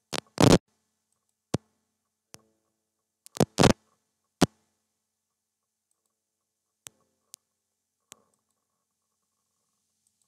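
Computer mouse button clicks, sharp and irregularly spaced: a run of loud single and paired clicks in the first half, then three faint clicks, with silence between.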